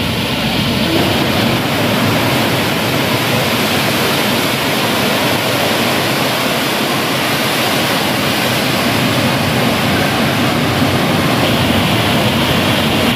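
Steady rush of falling water: an indoor whirlpool fountain draining through a clear bowl overhead and pouring as a column into the pool below.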